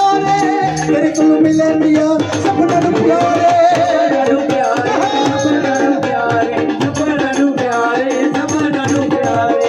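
Instrumental interlude of Dogri folk music: a melody line with bending, wavering notes over a steady drum and rattle rhythm.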